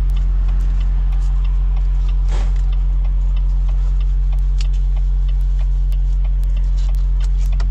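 Volvo truck's diesel engine idling steadily, heard from inside the cab, with faint scattered ticks over it.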